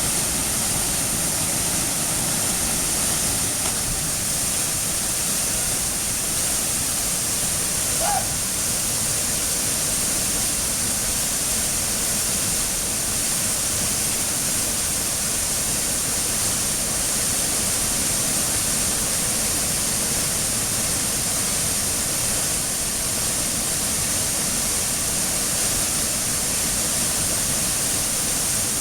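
Waterfall pouring into a pool, a steady rushing hiss of falling water. A brief short pitched sound cuts in about eight seconds in.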